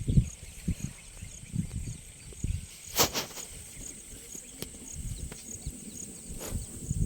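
Outdoor ambience: insects keep up a steady high drone with a regular chirp about twice a second over low, uneven wind rumble on the microphone. A sharp click comes about three seconds in, and a fainter one near the end.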